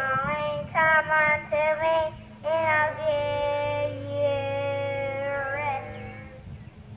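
A single high voice singing a melody, a few short notes and then a long held note that fades out near the end, over a steady low hum.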